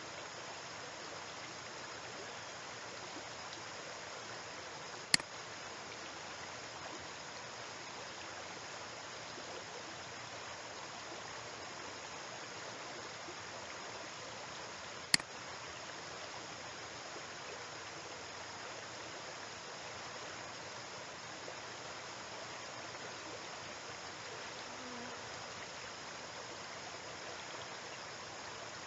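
Steady hiss of recording noise, broken twice by a single sharp computer mouse click, about five seconds in and again about ten seconds later.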